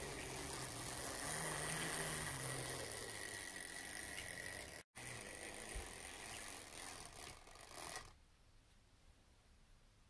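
LEGO yellow wind-up (clockwork) motor whirring as it unwinds, driving a small plastic truck along plastic LEGO rails, then running down so the sound drops away about eight seconds in as the truck stops.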